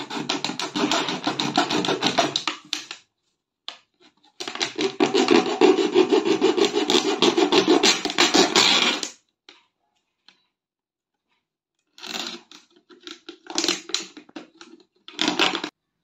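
Knife sawing through a thin plastic water bottle to cut a hole in it: rapid rasping strokes in two long runs, the second ending about nine seconds in, followed by a few scattered clicks and crinkles of the plastic near the end.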